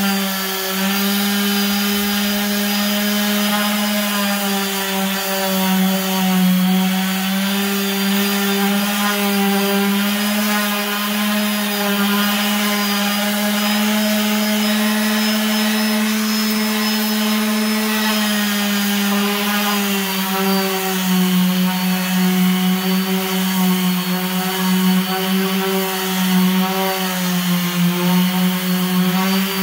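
Makita random orbital sander running steadily, sanding the factory finish off a veneered wooden tabletop: a constant motor hum with sanding hiss. The hum drops slightly in pitch about two-thirds of the way through.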